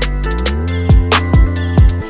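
Background music: a hip-hop-style beat with sustained chords, quick hi-hat-like clicks and three deep kick drums that drop in pitch in the second half.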